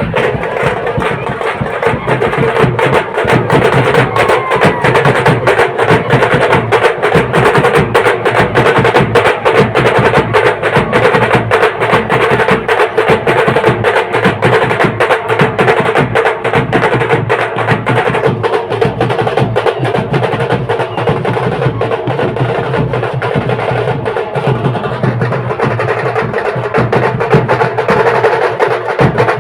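Loud band music played live, driven by fast, unbroken drumming, with a steady held tone underneath.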